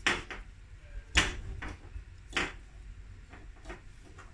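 Handling of a chainsaw recoil starter's plastic spool and new starter rope on a steel workbench: three sharp clicks or knocks a little over a second apart, the loudest about a second in, then a few fainter ticks.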